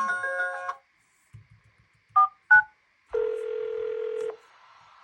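A phone ringtone melody cuts off under a second in. Then come two short keypad beeps and a steady phone tone about a second long.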